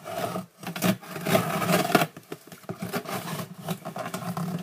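Scissors cutting and scraping open a cardboard shipping box: a dense run of scratchy crackling with many small clicks.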